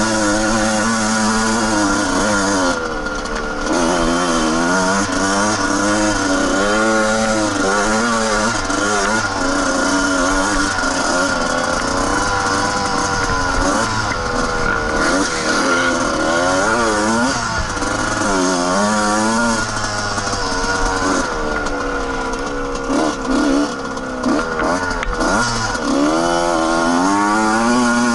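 Suzuki RM125 single-cylinder two-stroke dirt bike engine being ridden on a trail, revving up and dropping back over and over so its pitch keeps rising and falling, with a few short drops off the throttle.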